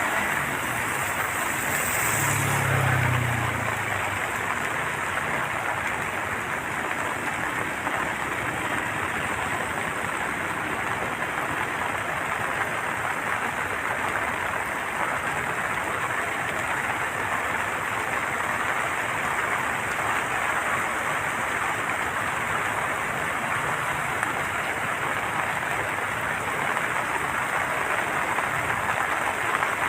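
Water rushing steadily through a dam's opened floodgates, a constant heavy noise, with a brief low rumble about two to three seconds in.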